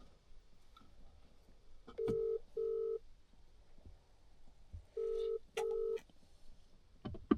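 Telephone ringback tone heard through a phone's speaker: two double rings, about 2 s and 5 s in, while an outgoing call waits to be answered. A few faint clicks and handling noises lie between the rings.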